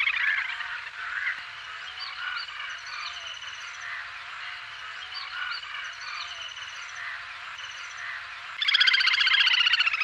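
Little grebe calling: soft scattered short, high notes, then about eight and a half seconds in a loud, rapid trill.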